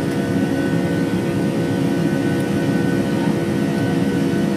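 Boeing 757's twin turbofan engines heard from inside the passenger cabin as the airliner moves along the runway: a steady, loud noise with a few constant tones held through it.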